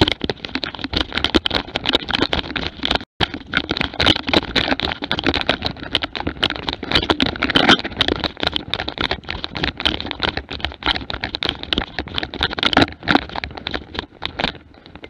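A Jämthund (Swedish elkhound) running hard through forest undergrowth with a camera strapped to it: rapid, dense rustling and crashing of brush against the dog and the camera, with quick footfalls. The sound cuts out for an instant about three seconds in and dies down near the end.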